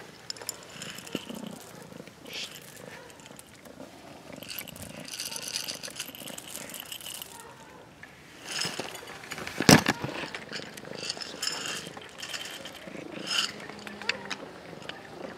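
Dry cat kibble rattling in a plastic bottle and scattering onto paving stones, with one sharp clatter just under ten seconds in, amid the crunch of cats eating kibble.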